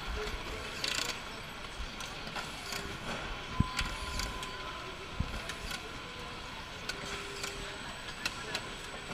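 Corded electric screwdrivers driving screws into a television's rear panel: short whirring runs of the motor and sharp clicks, over a steady factory-floor background.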